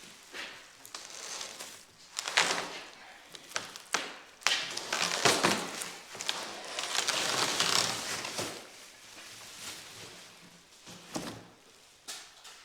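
Handling noise as a replacement excavator windshield glass is laid against the original windshield to compare sizes: scattered knocks and taps, with a longer stretch of rustling and scraping in the middle.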